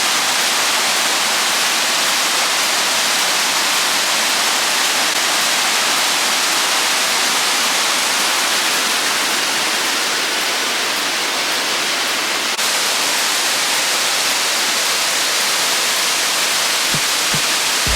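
Waterfall rushing: a steady, loud hiss of falling water.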